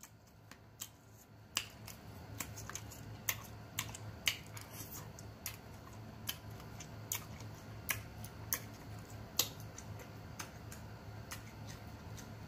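Close-miked eating: chewing and lip smacking, heard as sharp irregular clicks about one or two a second, over a low steady hum.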